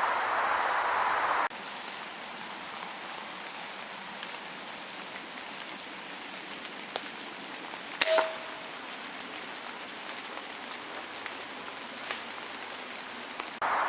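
Steady outdoor hiss that drops sharply to a quieter background about a second and a half in and comes back near the end. About eight seconds in, a single sharp crack with a brief ringing tone: an FX T12 pre-charged air rifle firing.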